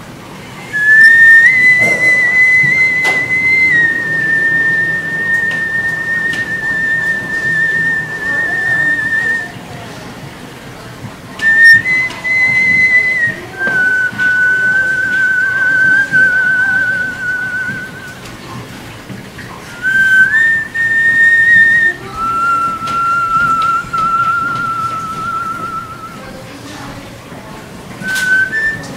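A person whistling through pursed lips in long held notes with a fine trembling waver, in three long phrases and the start of a fourth near the end, separated by pauses of about two seconds. Each phrase opens on a higher note and then steps down to a lower one that it holds.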